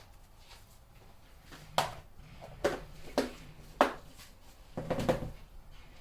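Kitchenware knocking as cooked food is dished out: four sharp knocks, then a short rattle of several knocks near the end.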